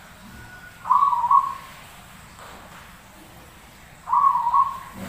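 Zebra dove (perkutut) cooing: two short, rolling coo phrases about three seconds apart.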